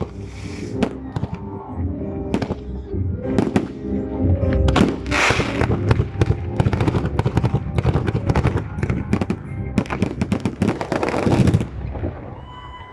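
Fireworks display: repeated bangs and crackles of shells bursting, thickening into a rapid barrage about ten seconds in, with music playing underneath.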